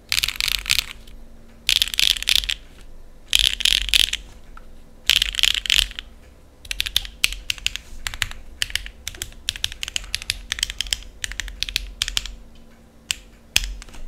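Typing on a NEO65 gasket-mount keyboard with stock HMX Cheese linear switches, an aluminium plate, no foam and Olivia keycaps. It starts with four fast rolling bursts of keystrokes, each about a second long. From about six and a half seconds there are separate keystrokes at several a second, then two lone keystrokes near the end.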